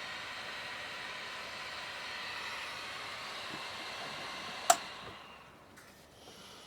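858D hot air station's wand blowing air through its freshly replaced heating element, nozzle off: a steady airy hiss with a faint whine. A sharp click about four and a half seconds in, after which the airflow dies away.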